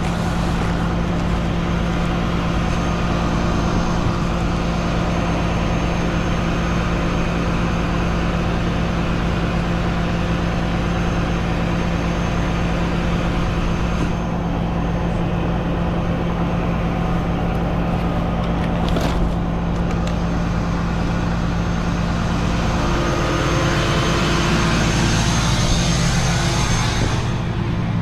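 Vehicle engine, most likely the tow truck's, idling steadily with a low hum. There is a single sharp click about two-thirds of the way through, and a rising hiss near the end.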